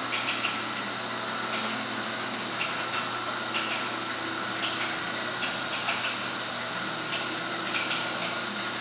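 Powered roller conveyor of an automatic turntable stretch wrapper running steadily with a high whine, as a pallet load rolls across the rollers onto the turntable. Light clicks and knocks come at uneven intervals, about one a second.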